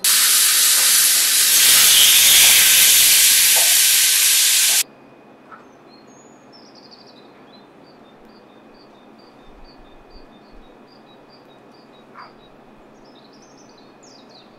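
Chicken sizzling on a hot grill pan: a loud, steady hiss that cuts off abruptly after about five seconds.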